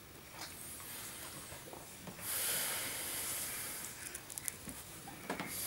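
A person breathing out hard for about two seconds after swallowing a drink, a breathy hiss, followed by a few faint short clicks.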